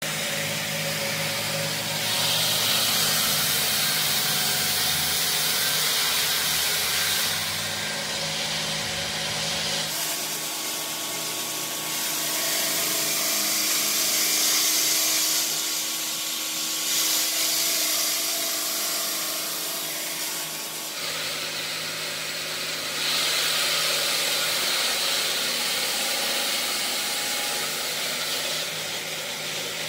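Water-cooled stone block cutter sawing through a large stone block: a steady, loud grinding hiss of the blade and water spray. A low machine hum runs under it for the first ten seconds, and the sound changes in character about ten and twenty-one seconds in.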